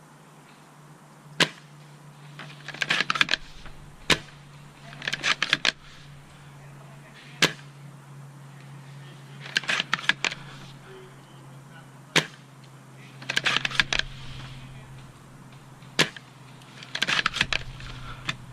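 Airsoft sniper rifle firing: six single sharp shots a few seconds apart, with a short rattle of quick clicks between each pair of shots.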